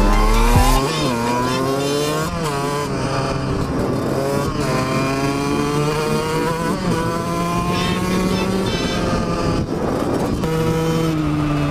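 Dirt bike engine accelerating up through the gears: the pitch climbs, drops at each upshift and climbs again, roughly every two seconds, then settles to a steady cruise near the end.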